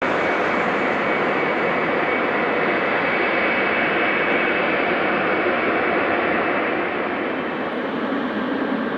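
Wide-body twin-engine jet airliner's engines at takeoff power: a loud, steady jet noise with a thin high whine, easing off a little near the end.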